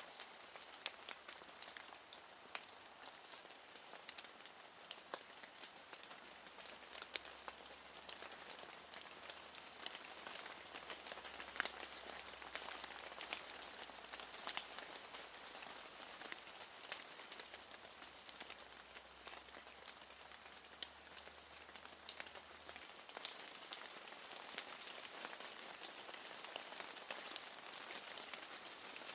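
Steady rain falling, with many small drops ticking close by throughout. A faint low hum sits underneath from about six seconds in until past the twenty-second mark.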